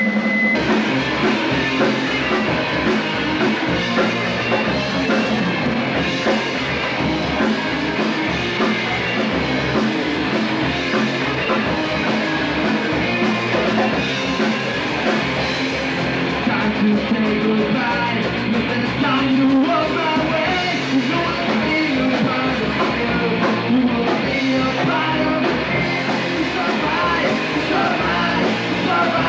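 Fast punk rock song with a steady drum beat, electric guitars and vocals.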